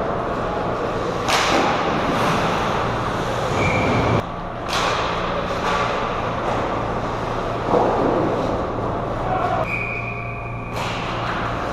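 Ice hockey play: skates scraping the ice and sticks and puck clattering, with about five sharp knocks and a couple of brief calls, over a steady low hum.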